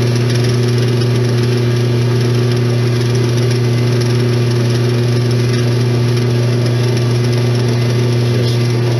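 Metal lathe running at a steady speed with a strong, even hum, spinning an antique sewing machine handwheel while a cloth loaded with fine polishing compound is held against it.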